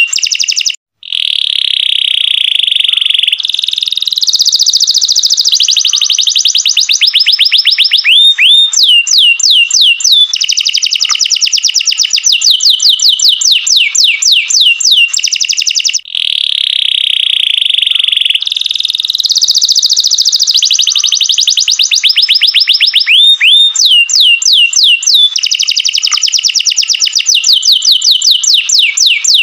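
Domestic canary singing a long, loud song of rapid trills and rolls, with fast runs of rising whistled notes. The song cuts out briefly about a second in and dips again about halfway through, then carries on.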